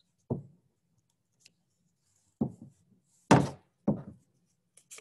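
Four dull thumps on a tabletop from hands pressing paper pieces down onto a paper craft hat. The third thump, a little past three seconds in, is the loudest and sharpest.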